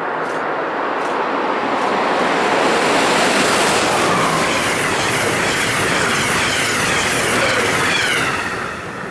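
Amtrak passenger train led by an AEM-7 electric locomotive passing at high speed: a loud rush of wheels and air with rhythmic clicking of wheels over rail joints. A falling whine is heard as the train goes by, and the sound drops away near the end.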